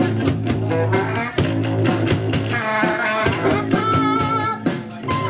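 Live rock band playing an instrumental passage: electric guitar over a drum kit with a steady beat, and no vocals.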